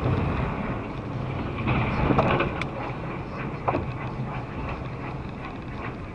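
Car interior road and engine noise from a car driving at highway speed: a steady low hum under a rushing noise, which swells briefly about two seconds in, with two short clicks a second apart.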